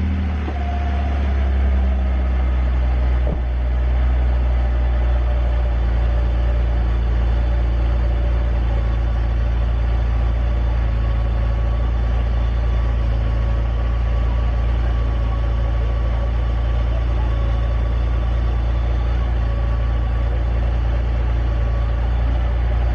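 BMW E46 330i's inline-six engine idling steadily just after starting, its idle easing down in the first few seconds and then holding even.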